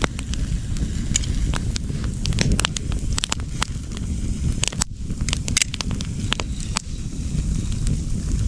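A wood campfire fed with fat wood, crackling and popping with irregular sharp snaps over a steady low rumble.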